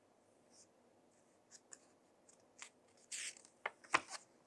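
Paper page of a hardcover picture book being turned by hand. It is mostly quiet at first, then about three seconds in there is a short paper swish followed by a few crisp flicks and taps as the page comes over.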